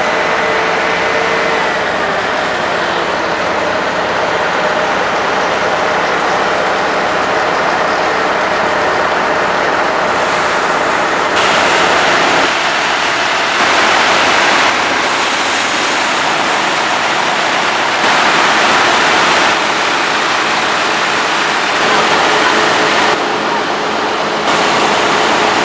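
Engine of an aerial ladder fire truck running steadily while the ladder is worked, a loud, even, noisy drone. The level jumps abruptly several times.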